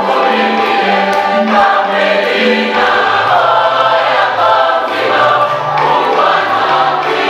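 Church choir singing a hymn in several voices, with a low bass accompaniment moving in steady steps underneath.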